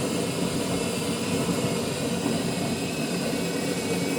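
Miele CVA 6401 built-in coffee machine running just after a drink is selected: a steady mechanical whirr with a low hum under it.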